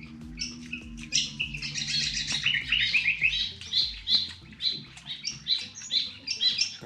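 Birds chirping: a fast, continuous run of short, high, downward-sweeping calls that starts about half a second in.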